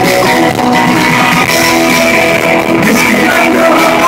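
Rock band playing live and loud: a male singer over electric guitar and bass.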